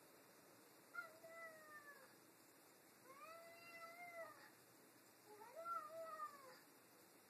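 House cat yowling three times in a hostile standoff with another cat: drawn-out warning howls, each about a second long, arching up and down in pitch.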